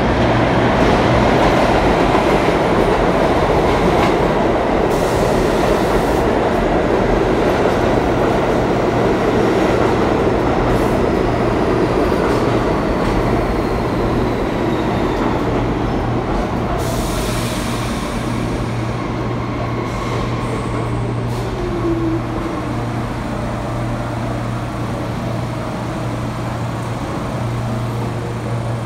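R46 subway train arriving at an underground platform. It runs in with a loud rumble of wheels on rail that gradually fades as it slows, over a steady low hum. A falling whine comes from the motors as it draws to a stop, with a brief hiss about seventeen seconds in and a small knock a few seconds later.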